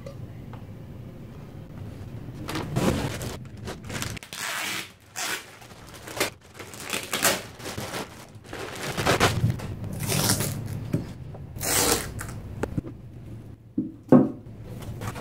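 Plastic wrapping bag rustling and crinkling in repeated bursts as it is pulled off a foam-wrapped turntable plinth, with a short knock near the end.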